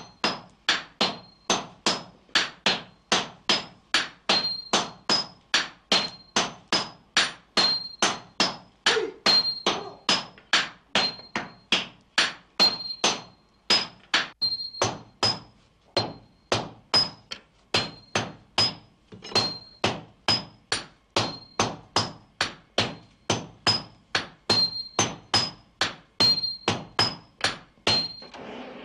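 Hammers forging red-hot sword steel on an anvil in the traditional Japanese way, blows falling in turn at a steady rhythm of about two a second, each with a short metallic ring.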